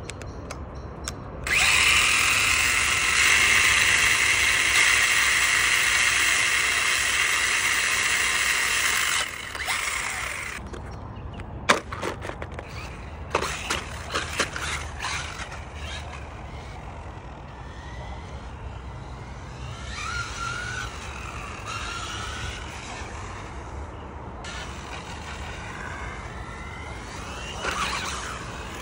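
Electric motor and drivetrain of an RC short-course truck whining at high revs, loud and steady for several seconds, then fainter, its pitch rising and falling with the throttle as the truck drives. A few sharp knocks come in between.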